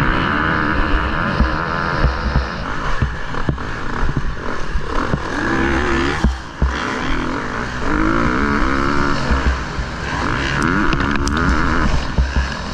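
Motocross bike engine heard from onboard, rising in pitch several times as the throttle is opened, with a brief drop in loudness a little past the middle.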